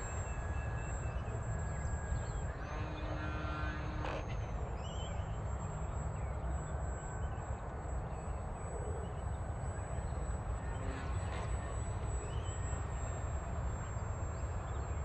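Steady low rumble of outdoor ambience with a thin, faint high whine held throughout, and scattered bird calls, including crows cawing.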